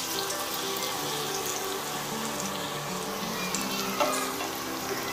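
Batter-coated bread slices frying in hot oil in a pan, a steady sizzle, over background music. A metal slotted spoon clinks once against the pan about four seconds in.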